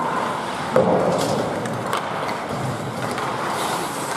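Ice hockey play: skates scraping on the ice under a steady rink din, with a sharp clack of hockey stick and puck about three-quarters of a second in and a lighter one near two seconds.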